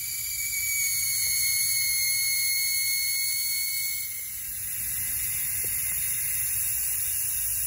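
Air hissing out of the valve stem of a BFGoodrich All-Terrain T/A truck tire as it is aired down: a steady high hiss with a whistling tone. It dips briefly about four seconds in, then resumes on the other front tire.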